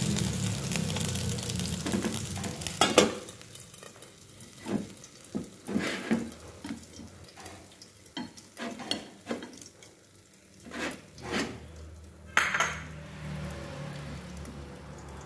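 Oil in a frying pan sizzling under the fried fish, fading over the first few seconds, then a string of clicks and clatters from chopsticks, a plate and an aluminium pan lid as the fish is lifted out and the pan is covered. The loudest clack comes about three seconds in.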